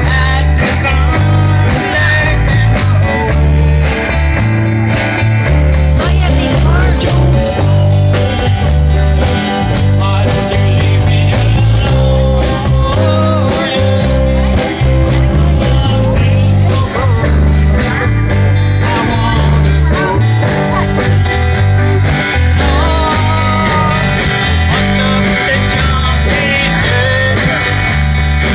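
Live rock-and-roll band playing a song: strummed acoustic rhythm guitar, electric lead guitar, electric bass and a drum kit, played loud through a PA.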